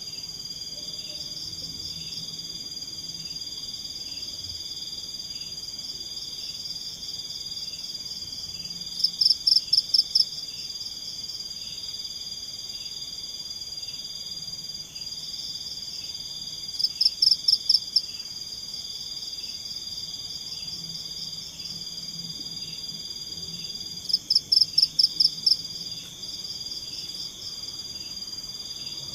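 Night forest chorus of insects and frogs: a steady high trill with a softer chirp repeating about twice a second. Three times it is broken by a loud call of rapid pulses lasting about a second, repeating every seven or eight seconds.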